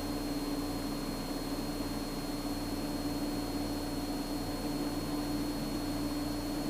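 Cessna 172's single piston engine and propeller droning steadily in the cabin, with a constant hum and no change in pitch.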